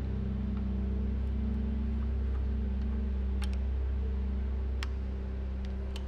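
Background music: a low, sustained synth-like drone with held notes that change every second or so, and a few faint clicks.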